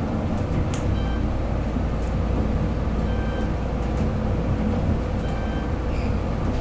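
Traction elevator car travelling up, with a steady low rumble of the ride. A short electronic chime sounds three times, about two seconds apart, as the car passes floors.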